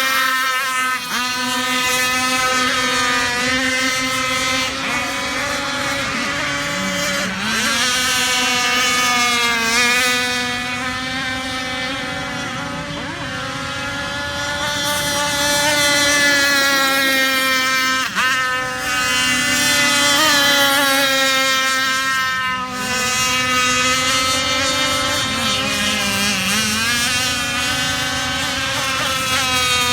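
Radio-controlled speedboat's motor running steadily with a high-pitched whine, its pitch wavering a little.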